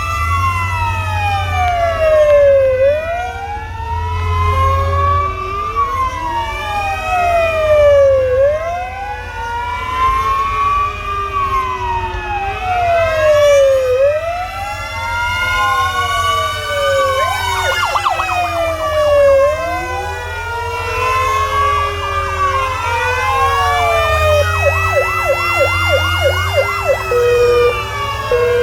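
Several emergency-vehicle sirens wailing at once, their slow rising and falling cycles overlapping out of step, with stretches of a fast yelp and a few short horn honks near the end, over the low rumble of the vehicles.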